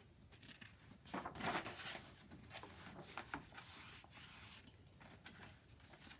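Sketchbook paper rustling as a page is turned over, then a hand rubbing across the blank paper to smooth it flat.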